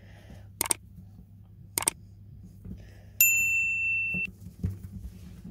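Two brief clicks, then a single steady high-pitched electronic beep lasting about a second that starts and stops abruptly.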